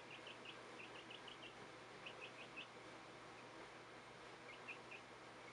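A baby chicken (chick) peeping faintly, with short high peeps in runs of three to five and pauses between.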